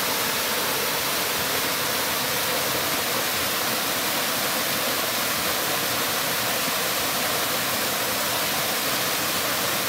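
Waterfall rushing steadily close by: a loud, unbroken wash of falling water.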